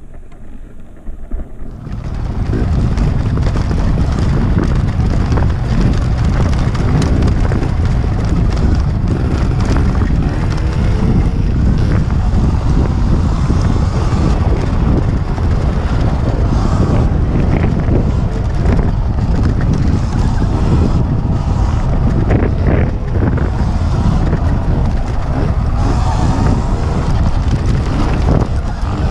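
Wind buffeting a helmet camera's microphone while riding a Sur Ron X electric dirt bike along bumpy singletrack, with the knocks and rattles of the bike over the trail; no engine note, as the bike is electric. The noise swells up over the first two seconds, then holds steady.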